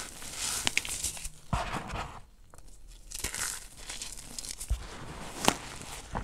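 Hands crushing and squeezing crumbly gym chalk in a tub, a dry crunching and crumbling with fine crackles. The crunching eases off briefly about two seconds in, then resumes, with one sharp crack near the end.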